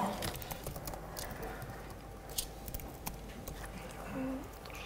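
Irregular clicks of keys being typed on a laptop keyboard, with a brief low murmur of a voice about four seconds in.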